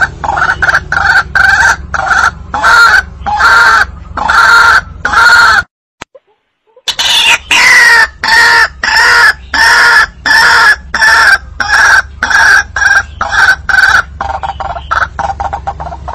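White-breasted waterhen (ruak-ruak) calling: a loud, repeated pitched note about two times a second, as played for a hunting lure. The calls cut out to dead silence for about a second before the middle, then resume and trail off into softer notes near the end.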